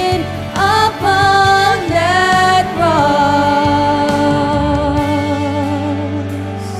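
Worship band music with a singer: a short sung phrase, then one long held note over the band, the music growing softer near the end.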